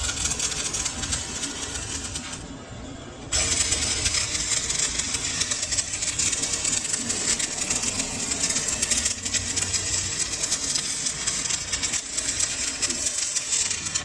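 Lathe running and cutting metal, a dense steady hiss with a fine rapid grain. It drops away briefly between about two and a half and three and a half seconds in.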